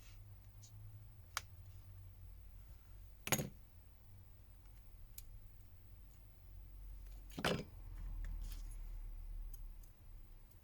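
Scattered small clicks and taps of a smartphone's parts being handled and pressed together during reassembly. Two knocks stand out, one about three seconds in and one about seven seconds in, with lighter ticks between them. A low handling rumble follows the second knock.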